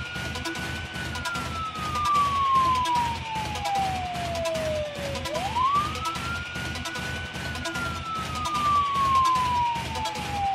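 Police-style wail siren: a single tone that rises quickly, holds briefly, then falls slowly over about five seconds, twice, over background music with a steady beat.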